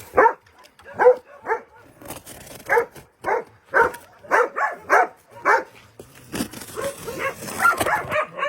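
Dog barking in short, sharp barks, about a dozen in quick succession, then a looser run of barks and whines near the end, eager and impatient.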